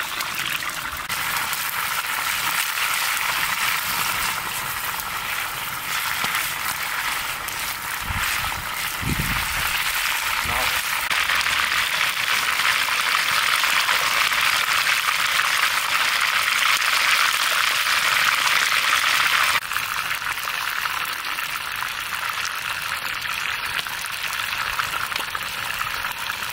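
Chicken frying in hot oil, a steady sizzle that grows louder and then drops suddenly about twenty seconds in. A couple of dull knocks sound about nine seconds in.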